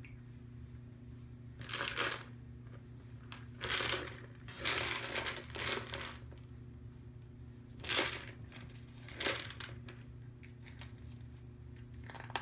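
A hard plastic foraging cup holding dry kibble being nosed and tipped over by a cat on a hard floor. The kibble rattles inside and the plastic knocks and scrapes on the floor in several short bursts, with quieter gaps between.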